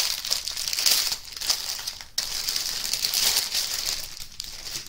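Clear plastic bag crinkling as it is handled and turned over in the hands, with a brief pause about two seconds in.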